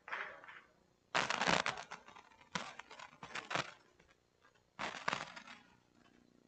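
Camera shutters firing in rapid bursts, three bursts of quick clicks in a few seconds.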